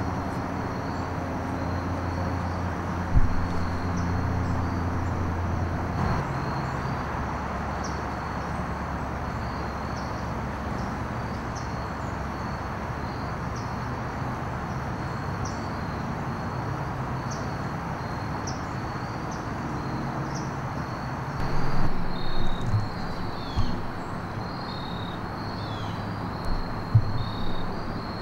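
Outdoor field ambience: a steady low rumble under a continuous high chirping of insects. A few knocks and short bird calls come in during the last few seconds.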